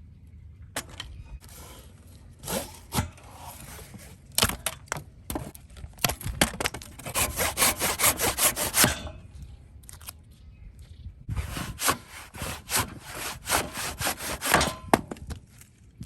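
A hand tool working wood with back-and-forth strokes: scattered strokes at first, then two spells of quick, even strokes, the first about six seconds in and the second about eleven seconds in.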